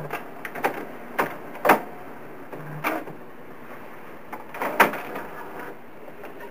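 Canon inkjet printer's CD-tray mechanism clicking and clunking after a disc print: a series of sharp clicks and knocks, the loudest about a second and a half in, with a short motor whir just before the clunk near three seconds in.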